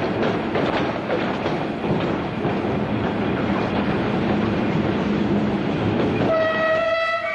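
Ferrovie Nord Milano electric train running on the rails with a steady rumble, then its horn sounds one steady note about six seconds in and holds.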